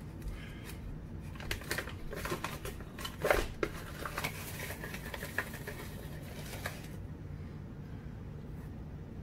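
A bag of cornmeal rustling and crinkling as it is opened and handled, with scattered small clicks and one sharper knock about three seconds in. A metal spoon scoops from the bag near the end.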